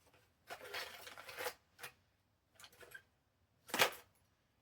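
Paper being handled and shuffled on a craft desk: a stretch of rustling and sliding near the start, a few shorter scrapes, and one sharp tap or knock near the end as pre-made paper tags are sorted through.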